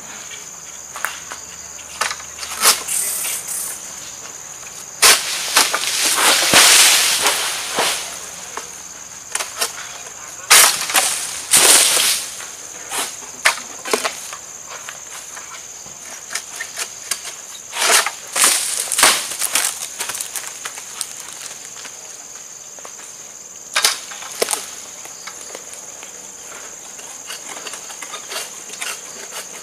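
Long-pole harvesting sickle (egrek) cutting oil palm fronds high in the crown: a run of sharp cracks and scrapes, and several longer spells of loud rustling as the cut fronds tear loose and fall through the leaves. A steady high insect drone runs underneath.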